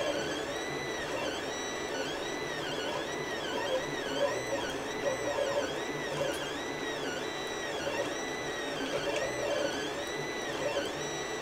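FDM 3D printer printing: its stepper motors give a whine that rises and falls in pitch over and over as the print head shuttles back and forth, over a steady mechanical hum.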